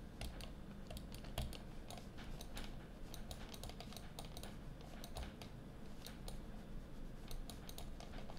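Computer keyboard keys clicking irregularly, several taps a second with short gaps, over a faint low hum.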